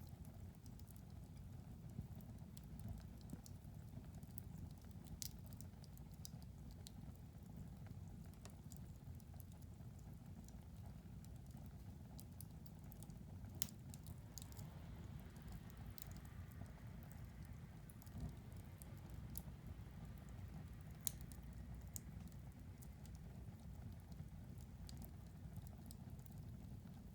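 Wood fire in a fireplace crackling faintly, with a low steady rumble of flames and scattered sharp pops and snaps at irregular intervals, two of them louder. A soft hiss rises for several seconds in the middle.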